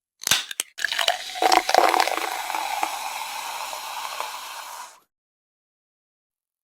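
Edited sound effect: two quick clicks, then a wet, crackling, squishy hiss lasting about four seconds that cuts off abruptly, followed by dead silence.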